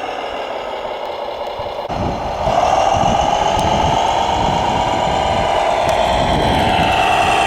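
Radio-controlled model construction machine running with a motor whine. The whine is several tones together that fall slightly in pitch, then it grows louder from about two seconds in over a low rumble.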